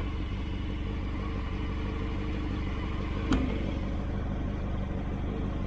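Motorcycle engine idling steadily, with one sharp click about three seconds in.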